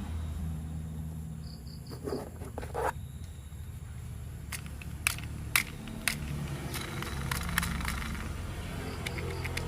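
Hard plastic clicking and tapping as toy train pieces are handled and fitted, with sharp clicks coming every half second or so in the second half, over a low steady hum. Two soft knocks come early, along with four quick faint high beeps.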